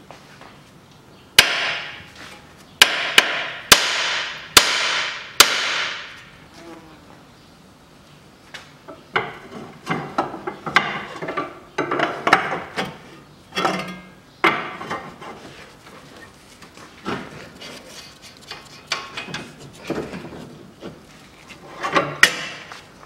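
Hammer blows on the steel front suspension: six sharp, ringing metal strikes in the first six seconds. After that come quieter clinks and rattles of tools and parts being handled.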